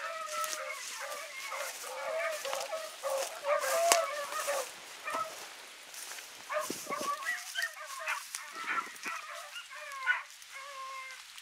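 A pack of rabbit hounds baying while running a rabbit's trail, several voices calling over one another in rising and falling cries.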